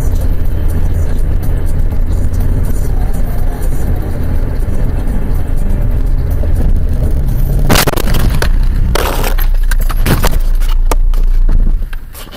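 Car cabin noise, a steady low engine and road rumble, then about eight seconds in a loud collision impact followed by a series of knocks and clatter from the crash. The sound falls away sharply near the end.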